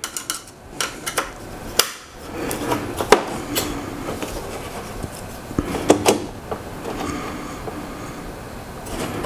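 Metal TV wall-mount brackets on the back of a TV being loosened, shifted and squared up: scattered clicks and knocks of metal on metal, with some rubbing in between.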